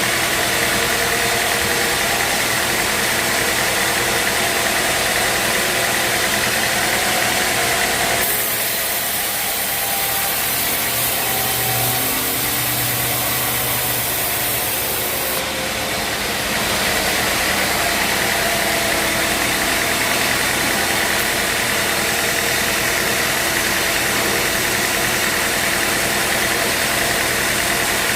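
Engine-driven band sawmill running steadily. About eight seconds in, the sound changes for several seconds, with a higher hiss and less low hum, before returning to the earlier steady running.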